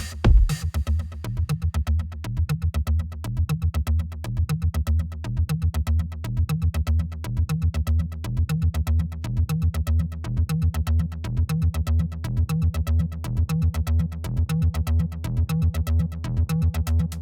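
Background electronic music with a synthesizer and a fast, steady beat over heavy bass.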